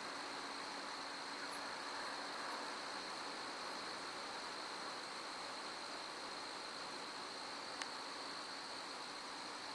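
Crickets chirping in a steady, continuous high-pitched chorus over a faint even hiss, with a single brief click about eight seconds in.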